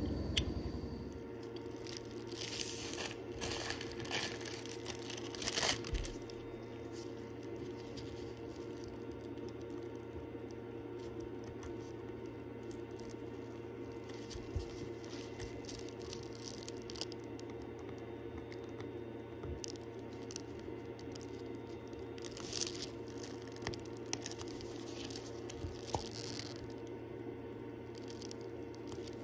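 Faint clicks and scrapes of small tools and watch parts being handled as a wristwatch movement is fitted into its case, over a steady low electrical hum. A few louder scrapes come a few seconds in and again later.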